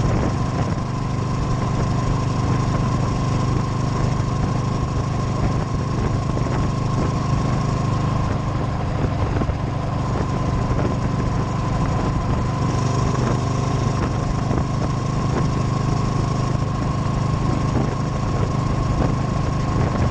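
Motorcycle engine running at a steady pace while riding, with a thin, steady high tone laid over it throughout.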